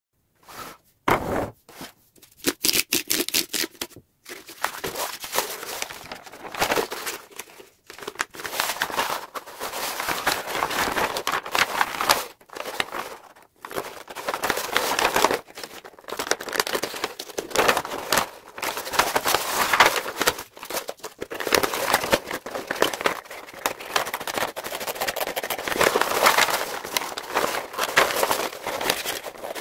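Stiff kraft wrapping paper rustling and crinkling as it is unrolled and handled, in bursts with a few short pauses, with scissors cutting through it near the end.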